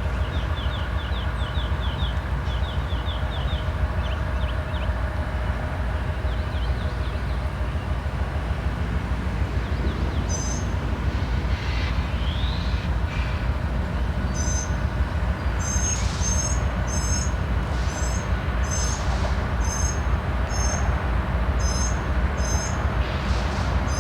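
A train of diesel locomotives and passenger cars moving along the track with a steady low rumble. Short high chirps repeat about once a second through the second half.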